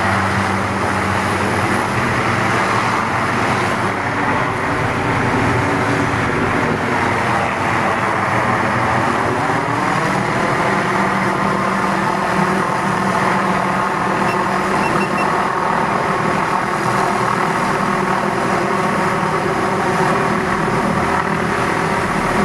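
Hughes 500D helicopter carrying an aerial saw, running steadily and loud, with its pitch bending down and back up around the middle as it moves.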